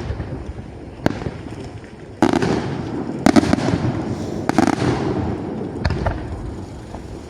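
Aerial fireworks going off: a quick series of sharp bangs about a second apart, with crackling and rumbling in between. The bangs are loudest from about two seconds in and die away near the end.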